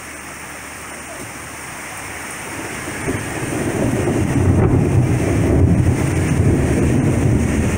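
Steady rain hiss, then a long, low roll of thunder that builds from about two and a half seconds in and keeps rumbling.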